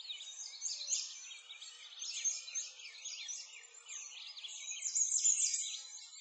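A dense chorus of many birds chirping and singing together, quick high chirps overlapping without a break, busiest about five seconds in.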